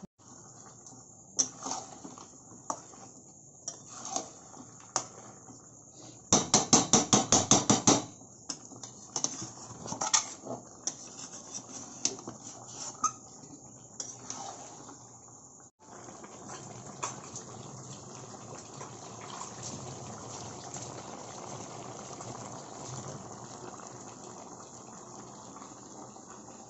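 A cooking utensil knocking and scraping against a pan as spiced chicken is stirred and dry-fried for kosha, with a quick run of about ten sharp taps, roughly six a second, about six seconds in. After a break about two-thirds through, the pan gives a steady cooking hiss with a few light knocks.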